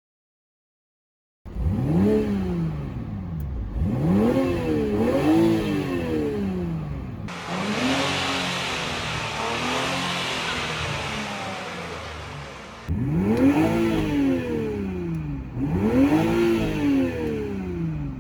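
Turbocharged sports car engine being revved in short blips, each note rising quickly and falling back. Between the blips is a longer, noisier stretch where the engine note slowly falls.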